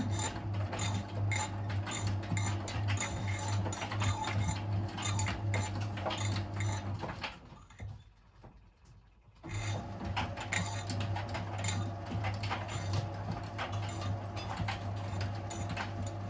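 Miele WS 5405 front-loading washing machine tumbling its drum in the main wash: a steady motor hum with many small clicks and clinks from the load. It stops for about two seconds about halfway through, then starts turning again.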